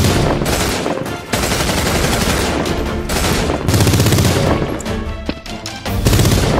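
Rapid automatic gunfire sound effects in several long bursts, with action music underneath.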